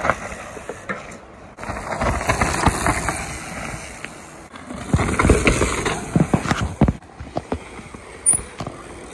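Mountain bike riding down a rough dirt trail: tyres rolling over soil and roots, with rattling knocks from the bike over the bumps.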